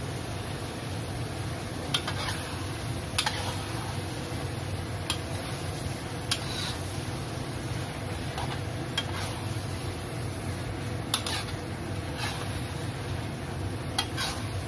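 Metal spatula stirring prawns, chillies and onion in a wok, scraping the pan with a sharp clink every second or two, over a steady low rumble.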